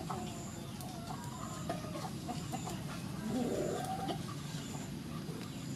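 Chickens clucking in the background, with short calls scattered through the first couple of seconds and one longer call rising in pitch about three seconds in.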